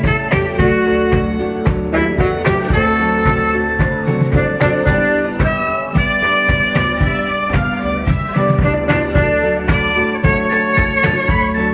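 Live dance band playing a tango, with held notes over a steady beat.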